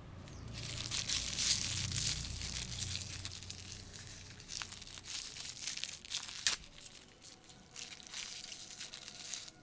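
Aluminium foil wrapper being crinkled and peeled open by hand: a dense crackling with sharp crackles, loudest in the first couple of seconds and coming in bursts after that.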